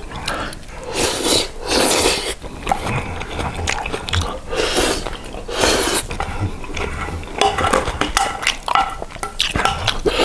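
Wooden spoon scraping a ceramic plate as the last of a jjajang noodle dish is scooped straight into the mouth, with eating sounds, in a run of short bursts.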